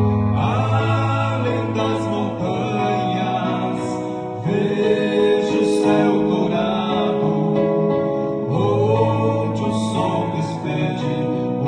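Two men singing a Portuguese gospel song in harmony over instrumental accompaniment of sustained chords and bass. New sung phrases enter about every four seconds.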